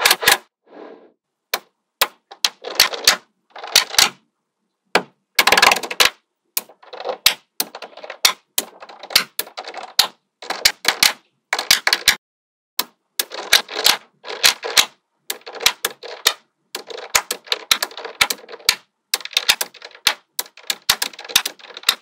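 Small magnetic balls clicking and snapping together, in irregular sharp clicks and short runs of rapid clatter as clusters of balls meet and roll against each other.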